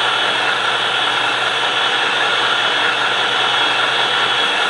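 Hydraulic pump of a scale RC truck running steadily, driving the model Palfinger PK 23002-SH crane as its telescopic boom extends.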